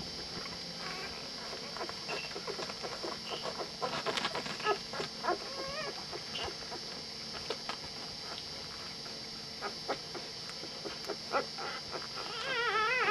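Labrador retriever puppies giving many short, high squeaks and whimpers, with a louder wavering howl starting near the end.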